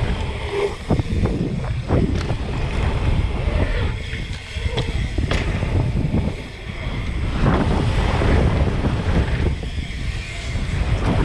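Wind rushing over an action camera's microphone as a mountain bike rolls fast down a wooden roll-in ramp and across wooden planks toward a dirt jump, with scattered sharp knocks and rattles from the tyres and bike over the boards.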